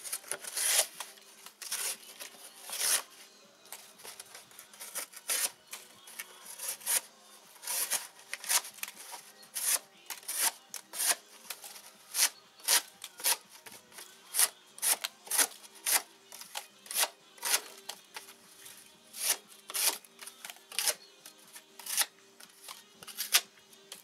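Victorinox Hunter XS locking blade slicing strips off a sheet of cardboard, one short rasping cut after another, about two a second at an uneven pace.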